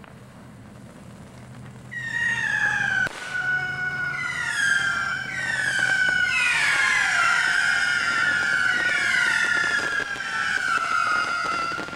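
Whistling fireworks going off. Starting about two seconds in, many high whistles overlap, each falling in pitch, and they run on for about ten seconds.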